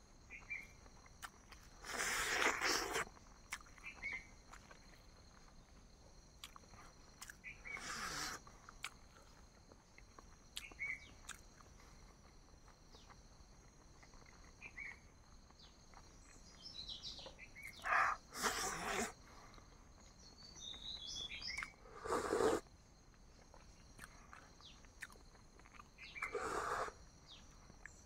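Birds chirping now and then over a steady high insect drone, with five louder noisy bursts of about a second each.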